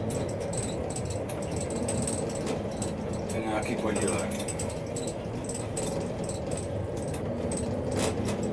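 Tram running slowly along the track, heard from inside the driver's cab: a steady running noise with a faint hum, and frequent small clicks and rattles.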